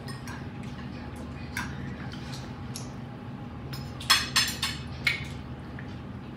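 Metal fork clinking and scraping against a plate while eating, with a cluster of sharp clinks about four seconds in, over a low steady hum.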